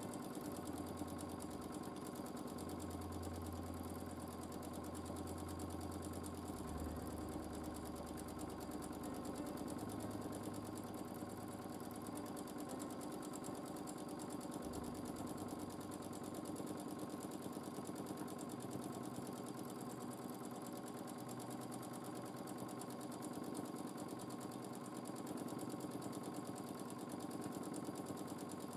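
Domestic sewing machine running steadily during free-motion quilting, its needle stitching quickly through the quilt in a fast, even rhythm.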